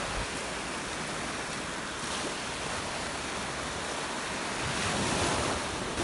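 Small ocean waves breaking and washing up a sandy shore in a steady rush, swelling a little about five seconds in.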